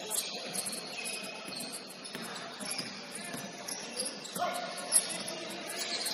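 Basketball-game gym sounds: sneakers squeaking on the hardwood floor in short high chirps, a basketball being dribbled with a sharp bounce about five seconds in, all echoing in a large hall.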